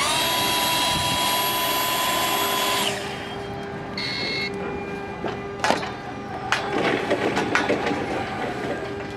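A loud steady sound with several held tones for about three seconds, cutting off suddenly. Then clicks and knocks as the jaw of a Novopress press-fitting tool is handled and set around a Mapress carbon steel press-fit fitting on a steel pipe, over a faint steady hum.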